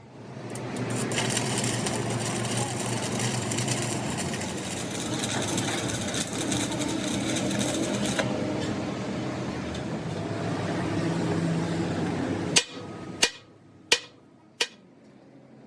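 Steady, harsh metalworking noise on the steel axle housing for about twelve seconds, which then stops. Four sharp hammer blows on metal follow, about two-thirds of a second apart.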